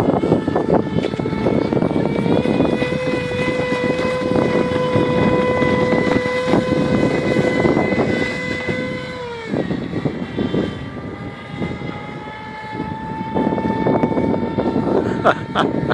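Radio-controlled model airboat's small motor and propeller whining at a steady pitch, cutting back sharply about halfway through as the throttle drops, then climbing back to a steady higher pitch. A rough rushing noise runs underneath.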